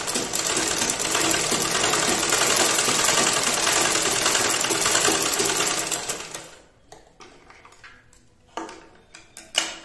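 Usha straight-stitch sewing machine, belt-driven, running steadily as it stitches cloth on a test seam, then slowing to a stop about six and a half seconds in. A few short clicks follow near the end.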